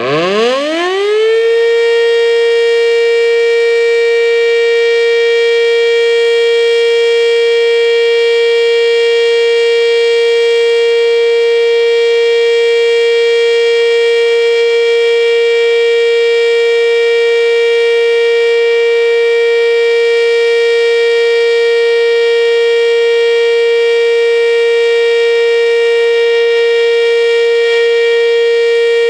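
ACA Banshee electromechanical outdoor warning siren sounding a test: it winds up quickly from a low growl to full pitch in the first second or two, then holds one loud, steady tone.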